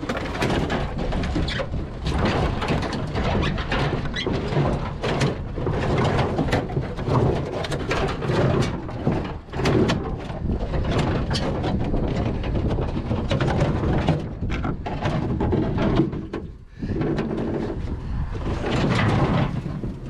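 Scrap metal being wrestled off a pickup's load: a sheet-steel car panel and tangled wire frames scraping, clanking and knocking against each other and the truck, in a steady run of irregular knocks and scrapes.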